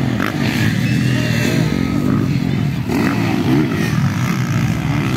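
Motocross dirt bike engines racing around a dirt track, revving up and dropping back repeatedly as the riders accelerate and shift, several engines overlapping.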